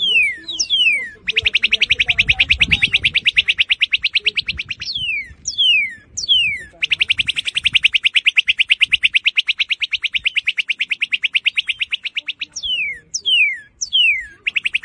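Northern cardinal singing: sharp down-slurred whistles, then a long, very rapid trill of repeated notes from about one second in to nearly five seconds. More down-slurred whistles follow, then a second long rapid trill from about seven to twelve seconds, and a few more whistles near the end.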